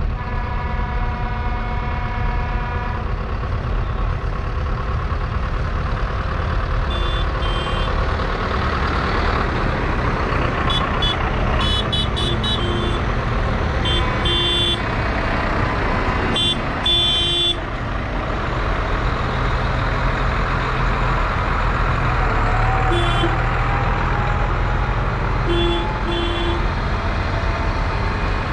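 Diesel tractor engines running as a procession of tractors passes. A horn is held for about three seconds at the start, followed by a series of short horn toots scattered through the rest.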